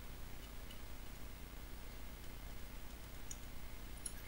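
Quiet workbench room tone with a low steady hum and two faint short ticks near the end.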